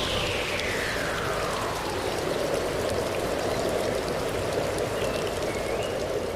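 Steady rush of water, like a stream or heavy rain. Over the first two seconds a tone slides down in pitch and fades.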